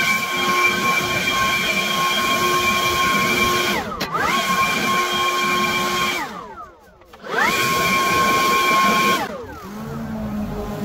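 Makita cordless battery leaf blower running with a steady high whine, its trigger briefly eased and pressed again about 4 seconds in. It spins down around 6 seconds, spins back up about a second later, and spins down again near the end, where background music comes in.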